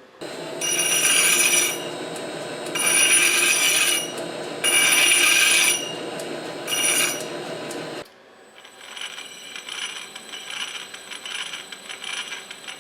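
Metal lathe facing a steel back plate: the machine runs with four loud bursts of high-pitched cutting squeal from the tool, then stops suddenly about eight seconds in. After that comes a lighter, rapid clattering of gears or a mechanism.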